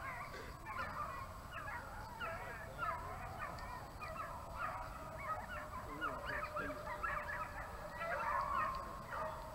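A large pack of hounds baying in chorus, many overlapping short rising and falling cries, with one longer drawn-out bawl about eight seconds in: hounds in full cry on a deer chase.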